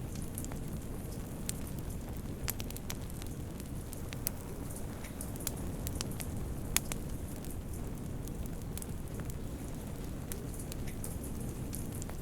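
Wood fire burning in a fireplace: irregular sharp crackles and pops over a steady low rushing, with one louder pop about seven seconds in.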